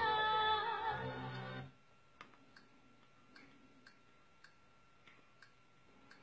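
Orchestral film-score music with singing from a film's end credits, played through a TV's speakers, cutting off abruptly about a second and a half in. After that comes a series of faint clicks about every half second.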